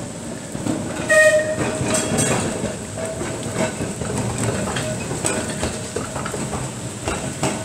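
Electric trams running on wet street track: wheels click over the rail joints. A ringing tone starts about a second in and fades over the next two seconds.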